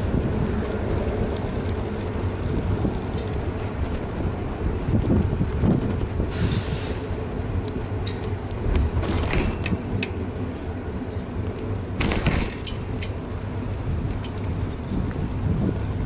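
Wind buffeting and road rumble on a bicycle-mounted action camera while riding, with light rattling clicks from the bike. Two brief hissy bursts come about nine and twelve seconds in.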